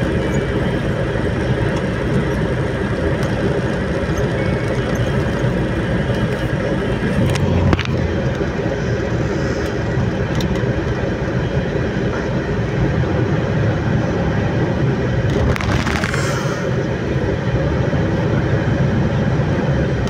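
Steady drone of a vehicle's engine and tyres heard from inside the cab while driving on a highway, with a single knock about eight seconds in and a short whoosh about three-quarters of the way through.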